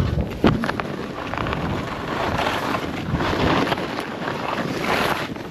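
Wind rushing over the microphone of a camera carried while skiing, a steady loud rush with a brief bump about half a second in.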